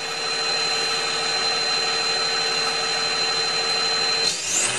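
BMW M57 straight-six turbodiesel idling at the tailpipe of an exhaust with only a small rear silencer, with a steady high whine over it. Near the end the throttle is blipped and the engine revs up, the pitch rising sharply.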